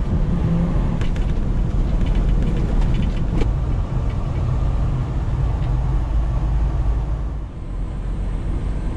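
Freightliner Cascadia semi truck driving, heard from inside the cab: a steady low diesel engine drone mixed with road noise, easing off slightly near the end.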